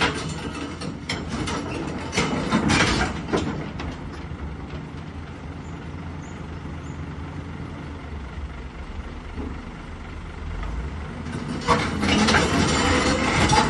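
Excavator's diesel engine running steadily, with loud stretches of metal clanking and grinding from its steel tracks over the first few seconds and again near the end.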